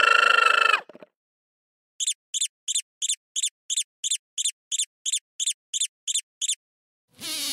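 Mouse squeaking: about fourteen short, high squeaks in a steady run of roughly three a second. A loud sustained alpaca call, the loudest sound here, cuts off under a second in, and a buzzing starts just before the end.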